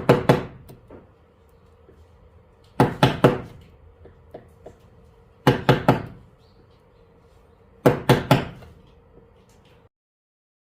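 Mallet striking a carving chisel into a wooden board in traditional Korean wood carving (seogak). Four quick bursts of three or four sharp knocks each, about every two and a half seconds.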